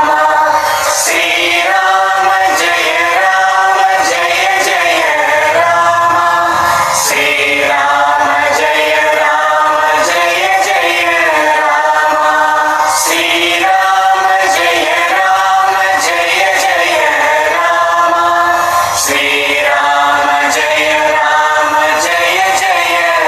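Devotional chant to Rama sung by a choir of voices with musical accompaniment. The same phrase comes round about every six seconds.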